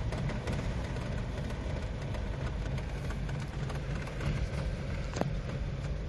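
Nissan Sentra's four-cylinder engine idling low and unsteady, struggling to hold idle off the throttle. The mechanic puts this down to cam timing slipping on the timing chain, possibly the variable valve timing gear or solenoid, behind a P0300 random-misfire code. One short click about five seconds in.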